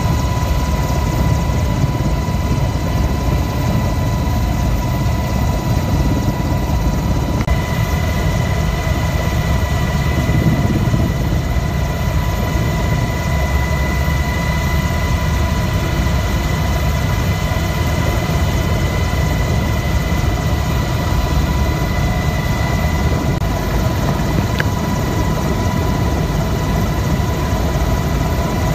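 Coast Guard rescue helicopter hovering, heard from on board: a steady, loud rotor and engine rumble with a constant high whine over it.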